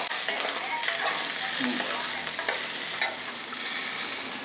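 Onion, garlic, green chillies and whole spices sizzling in hot oil as a steel ladle stirs them around the pan, with a few light scrapes and taps of the ladle. The masala is being fried until its raw smell is gone.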